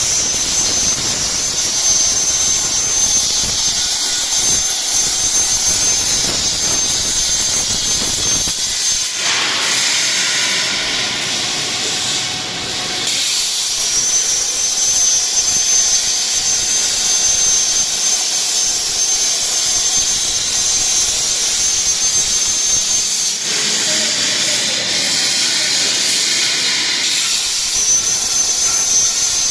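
CNC plasma torch cutting a steel profile: a loud, steady hiss with a thin high whine over it. Twice the whine drops away for a few seconds and the hiss shifts lower before the cut sound returns.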